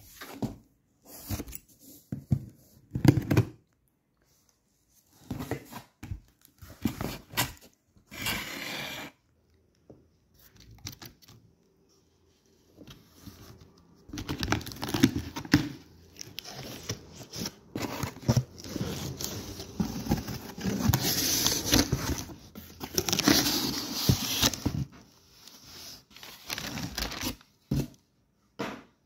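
A taped cardboard parcel being opened by hand: scattered scratches and knocks on the cardboard, then about ten seconds of steady tearing and rustling as the packing tape and flaps are pulled open. A few short crinkles of plastic wrapping come near the end.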